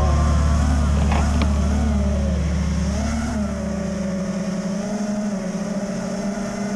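FPV quadcopter's motors and propellers whining, the pitch wavering up and down with the throttle and then settling to a steadier tone, with two short ticks a little over a second in.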